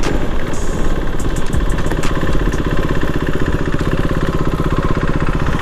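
Yamaha R15 V3's single-cylinder engine running steadily at low revs through its stock exhaust, an even, unchanging beat of firing pulses.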